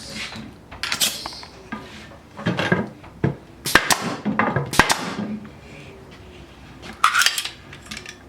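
Metal clicks and clinks as an air hose quick-connect coupler is fitted to a pneumatic 18-gauge stapler, with a few short hisses and two sharp clicks about a second apart near the middle.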